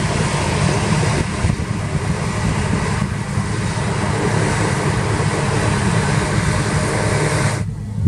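New Holland CX860 combine harvester running under load while threshing wheat: a steady, loud mechanical drone with a rushing hiss from the threshing and the straw spreading out the back. It cuts off abruptly near the end.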